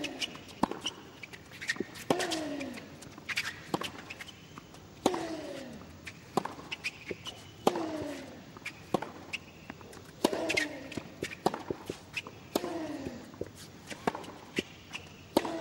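Tennis rally on a hard court: sharp racket strikes on the ball and ball bounces, with one player giving a short falling grunt on every other shot, about every two and a half seconds.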